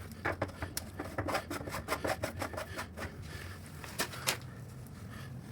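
Irregular clicks, taps and short scrapes of hands and tools working at a drain cleanout, with two sharper knocks about four seconds in.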